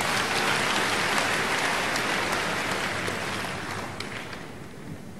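Congregation applauding; the clapping is strongest at the start and dies away about four seconds in.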